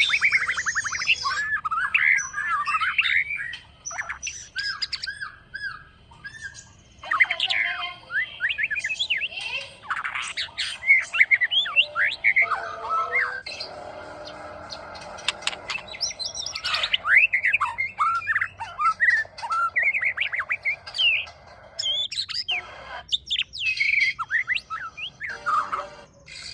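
A young white-rumped shama singing a varied song of short whistled notes, chirps and squeaky calls in quick phrases separated by brief pauses, with a stretch of raspy, hissing sound about halfway through.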